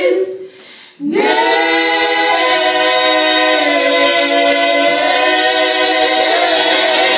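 Women's vocal group singing a cappella in harmony. The voices drop away for about a second at the start, then come back in on long held chords.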